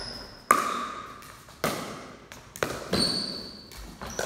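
Pickleball rally: the hollow plastic ball popping off hard paddles and bouncing on the concrete floor, five sharp hits about a second apart, each ringing on in the big room.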